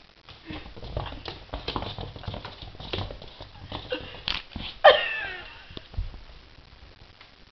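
A Sphynx kitten's paws and claws scrabbling and tapping on a wooden floor as it wrestles a toy mouse: an irregular patter of clicks with low thuds. A loud sharp click comes about five seconds in, followed by a brief falling pitched sound.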